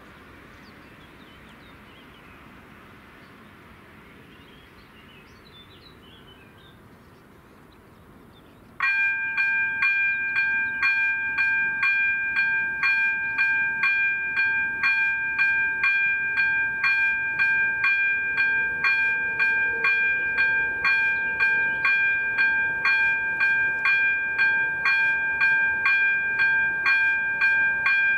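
Electronic warning bell of a Czech AŽD 97 level crossing signal switches on about nine seconds in and rings steadily, a sustained tone struck about twice a second. It signals that a train is approaching the crossing. Before it, only faint outdoor background.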